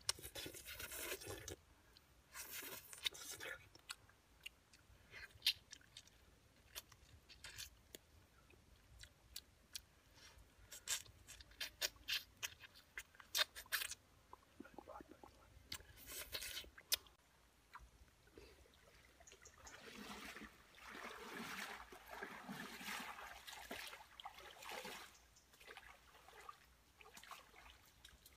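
A person crunching and chewing grilled catfish picked off the bone, with many short, sharp crackling bites.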